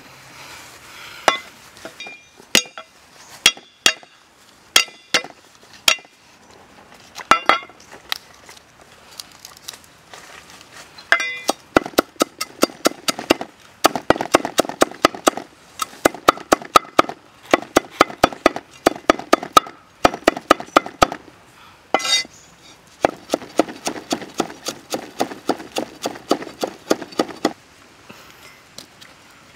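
Cleaver chopping garlic and kaffir lime leaves on a thick round wooden chopping block. First come single sharp knocks a second or so apart, then fast runs of several strikes a second on the block, with a short break between two runs.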